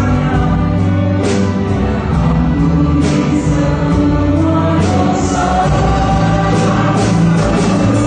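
Church ensemble of violins and cello with guitars and keyboard accompanying a group of singers in a worship song, playing and singing continuously.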